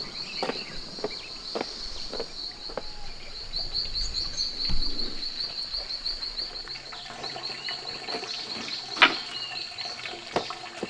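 An insect trilling in a steady run of rapid, high pulses, broken off briefly now and then. Scattered clicks and knocks sound over it, the sharpest about nine seconds in, along with a few short bird chirps.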